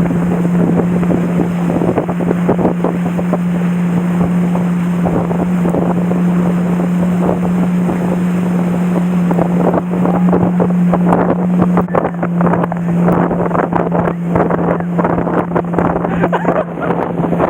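Tow motorboat's engine running steadily at speed, one constant drone, with wind buffeting the microphone.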